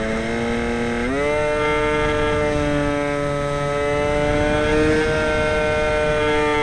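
Whine of the Aerobird RC plane's electric motor and propeller, picked up by a camera mounted in the fuselage. The pitch rises about a second in and then holds steady, over a low rushing noise.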